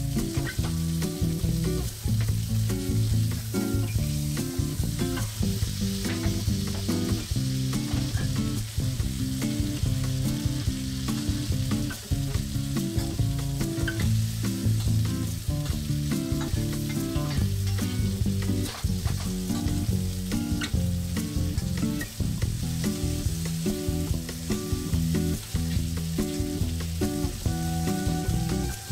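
Butter and oil sizzling and foaming around a thick sirloin steak in a copper frying pan as it is basted. A metal spoon scrapes and clicks against the pan now and then while the hot butter is spooned over the meat.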